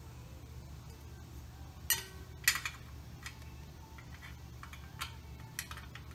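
Metal hand tools clinking against bolts and fittings under a car: a few sharp clinks, the loudest about two and two and a half seconds in, over a steady low hum.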